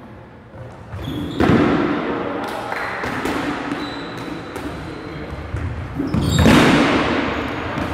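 Rubber dodgeballs thrown and bouncing on a hardwood gym floor: a string of sharp thuds that ring on in the hall, loudest about a second and a half in and again around six seconds in.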